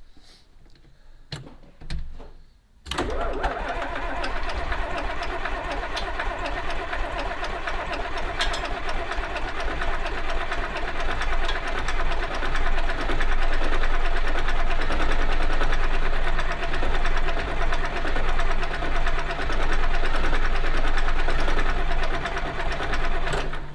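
Freshly rebuilt John Deere 4430 six-cylinder diesel engine cranked over after a few seconds' pause, catching and clattering as it tries to start, growing louder about halfway through, then cutting off near the end.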